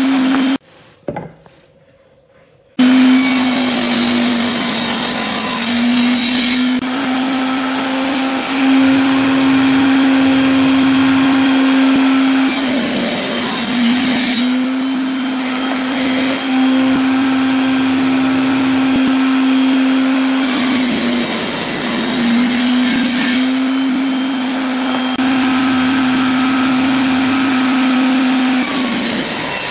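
Table saw running with a steady hum and cutting small wooden blocks and strips several times. Each cut adds a harsh rasp for a few seconds over the hum. The sound drops to near silence for about two seconds near the start.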